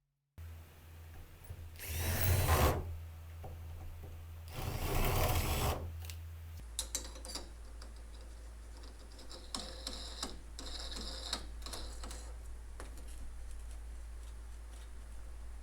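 Cordless drill driving screws into a door latch in two short runs of about a second each, followed by light clicks and rattles of the latch hardware.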